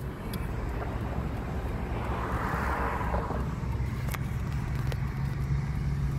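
Steady low car rumble heard from inside the cabin, with a brief swell of hiss about two seconds in and a faint click about four seconds in.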